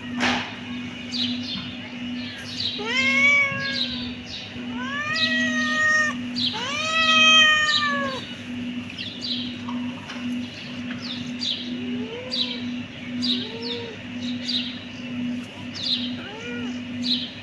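Kitten meowing: three long, loud meows in the first half, then shorter, softer meows, over quick high chirps and a steady low hum.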